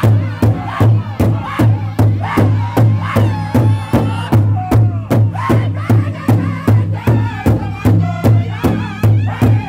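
Powwow drum group singing an intertribal song: several men strike one large bass drum in unison with an even beat of about two to three strokes a second, under loud, high-pitched group singing.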